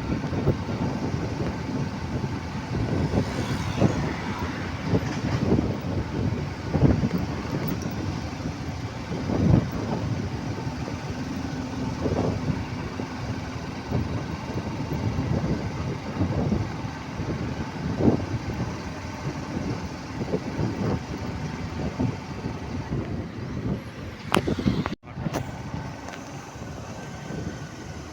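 Road vehicle noise: engine rumble and tyre noise with frequent irregular bumps, truck traffic among it. The sound drops out briefly about 25 seconds in.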